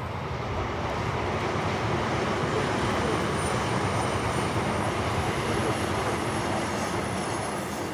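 Engine noise of a passing vehicle, swelling steadily and then fading near the end.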